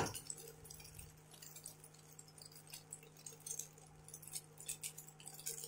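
Faint, scattered light clicks and scrapes of a silicone spatula stirring spaghetti in a non-stick wok, over a low steady hum.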